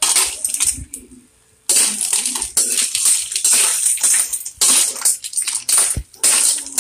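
Clams in their shells clattering and scraping as they are stirred with a metal ladle in a metal wok, with a brief pause a little after the first second.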